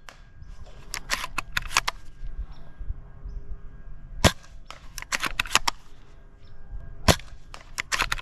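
Bolt-action airsoft sniper rifle firing: two sharp single shots a few seconds apart, with quick runs of clicks in between as the bolt is racked.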